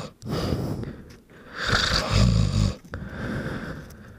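A man snoring while lying on his back: one loud, buzzing snore on the in-breath in the middle, between quieter out-breaths.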